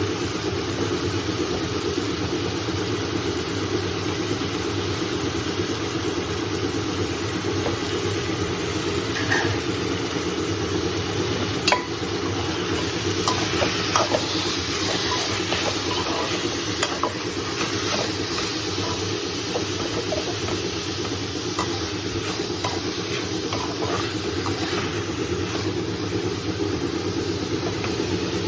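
Food sizzling in a pan as a spoon stirs it, with scattered clicks and taps of the utensil against the pan through the middle, over a steady low hum.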